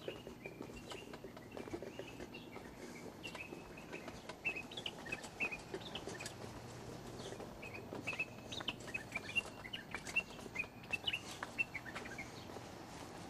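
Small birds chirping in quick short notes, busiest through the middle and later part, over a faint steady hum.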